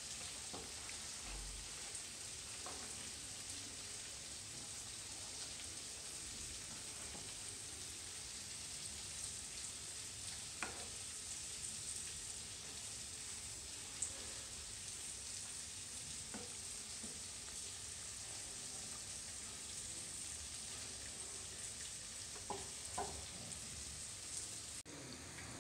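Beef kalo bhuna sizzling steadily in hot oil in a blackened iron pan, with a few sharp clicks of a metal spatula against the pan.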